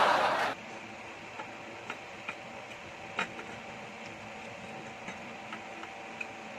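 A loud slurp of yakisoba noodles that stops about half a second in, followed by scattered small clicks of a metal fork against the plate.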